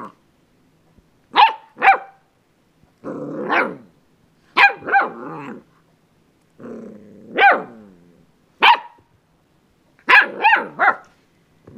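Springer spaniel puppy yapping and growling in bouts: short, high barks, often in quick pairs and once three in a row, between low rough growls that run into barks.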